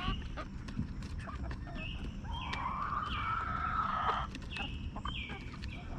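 A flock of young hens clucking and calling as they come out of the coop, with short high calls again and again and one longer drawn-out call about two seconds in.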